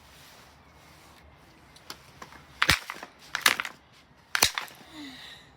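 A fan heater being struck to break it apart: about four sharp knocks and cracks in the second half, the loudest two close to two seconds apart.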